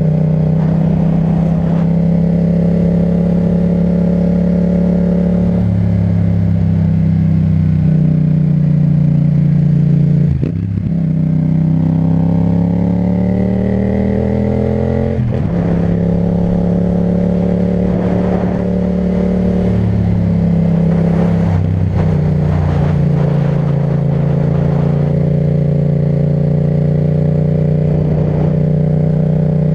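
Yamaha MT-07's parallel-twin engine running through an Akrapovic titanium exhaust, holding a steady note at cruising revs. About ten seconds in the throttle briefly closes, then the revs rise steadily for several seconds as it accelerates. A shift cuts the rise off and the steady note returns.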